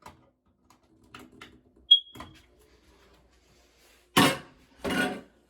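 A smoke alarm gives one short, high-pitched beep about two seconds in. Near the end come two louder rushing noise bursts, each about half a second long.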